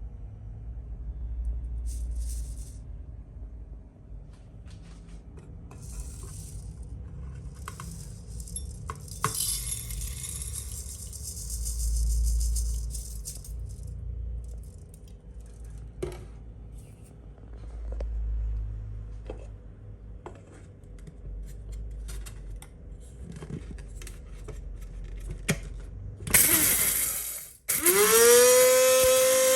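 Scattered clinks, taps and scraping of kitchen containers and utensils being handled. Near the end the small electric grinder's motor starts with a loud burst and runs with a whine that rises, holds and begins to fall.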